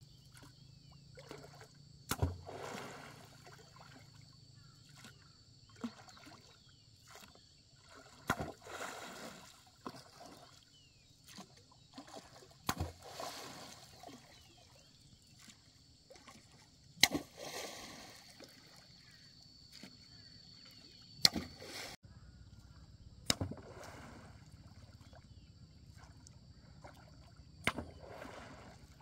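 Oars of a small wooden rowboat being pulled through calm lake water: a sharp wooden knock at each stroke every four or five seconds, followed by the splash and wash of the blades. A faint steady high hum runs underneath.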